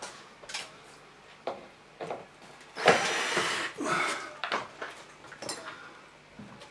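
Small curtain-track fittings (spacers and brackets) clicking and clattering as they are picked through by hand, with a louder rustling scrape lasting about a second, about three seconds in.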